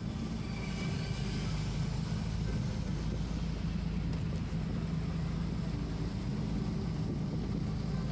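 Speedboat's engine running steadily under way, heard from on board as a low drone.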